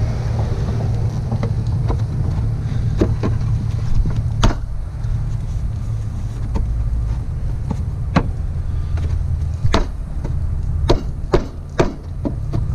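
Irregular sharp knocks and clicks of a hard plastic coolant reservoir bottle being handled and pushed into its mounting clips, about a dozen in all, several close together near the end. A steady low rumble runs underneath.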